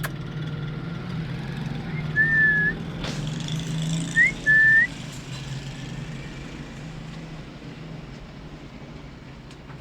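Three short, clear whistles: the first held briefly, the next two starting with an upward flick.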